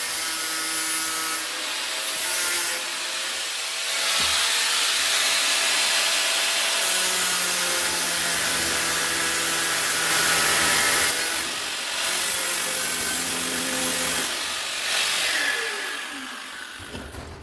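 A handheld power tool abrading rusty steel, a steady rasping grind whose motor pitch shifts as it is loaded. It slows and dies away near the end.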